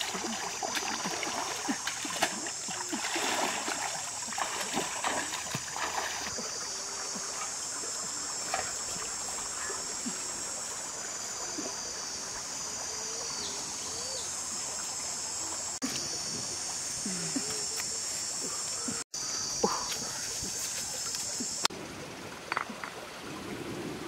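Water splashing and trickling in a shallow stream, busiest in the first few seconds, under a steady high-pitched hiss that drops away near the end.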